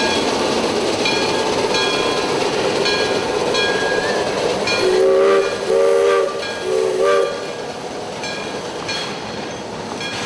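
Steam locomotive chime whistle sounding three short blasts about halfway through, over the steady rumble of a running narrow-gauge train, with regular ringing clinks about every two-thirds of a second.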